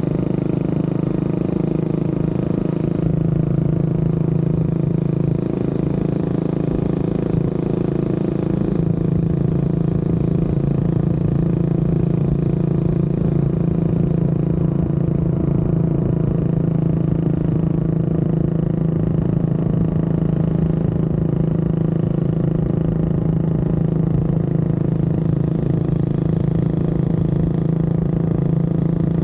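Honda CB400SS's single-cylinder engine running at a steady cruise with a low rumble beneath it; the engine note holds nearly constant throughout.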